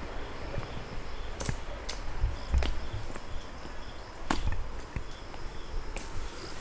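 Footsteps of a hiker on a rocky trail: irregular scuffs, clicks and soft thuds a second or so apart, with insects chirring faintly and steadily behind.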